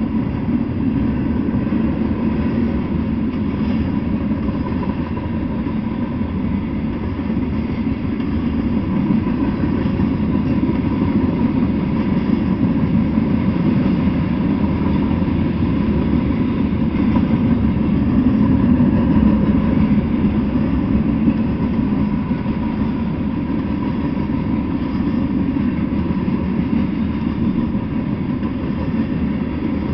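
Freight train of covered hopper cars rolling past close by: a steady rumble of steel wheels on the rails.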